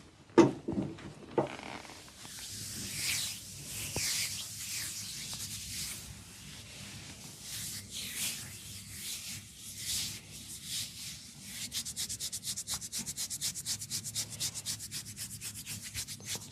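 Hands rubbing a person's scalp and hair during a head massage: a scratchy rubbing in long strokes, turning in the second half to fast, even back-and-forth strokes of about five a second. It opens with a few sharp knocks, the loudest sounds, in the first second and a half.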